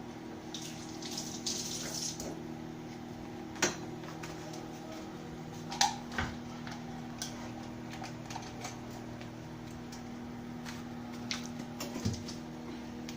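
Microwave oven running while it cooks, a steady hum with its fan noise, with a few sharp knocks or clicks, the loudest about a third of the way in and near the end.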